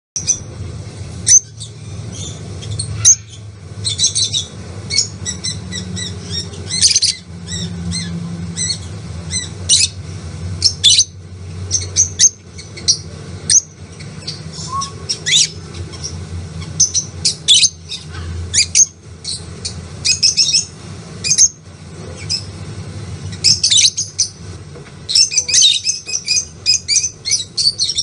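Featherless parrot chick chirping and squawking in many short, sharp, high calls, some in quick runs, over a faint steady low hum.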